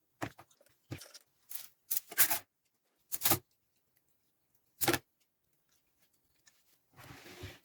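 A series of short scraping and rustling handling noises, about seven separate bursts with silence between them, the longest about seven seconds in.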